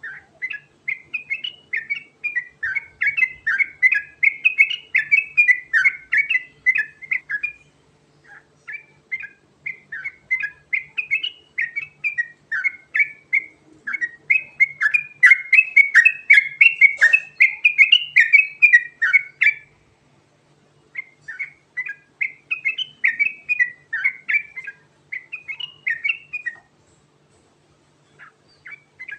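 Yellow-vented bulbul singing long, unbroken runs of quick whistled and chattering notes, the continuous 'ngerol' song with imitated phrases mixed in. The song stops briefly about 8 and 20 seconds in and again near the end.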